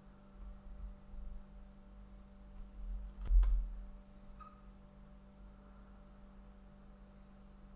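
One sharp click of a snooker shot, cue and balls striking, about three seconds in, over a steady electrical hum.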